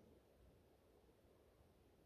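Near silence: faint, steady wind noise with a low rumble, and no creak of the trees.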